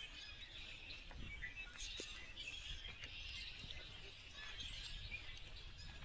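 Faint outdoor ambience: many distant birds chirping and twittering over a low, steady rumble.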